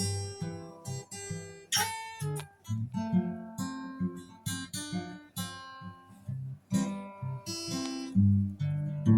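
Acoustic guitar playing an instrumental folk country-blues introduction: plucked bass notes and strummed chords in a steady rhythm.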